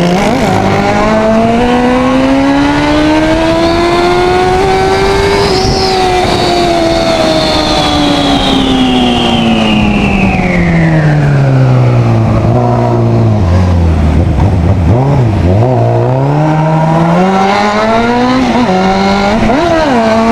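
Motorcycle engine heard while riding: the revs climb for about six seconds, then fall steadily as the bike slows. Near the end a few quick throttle blips come before it picks up again.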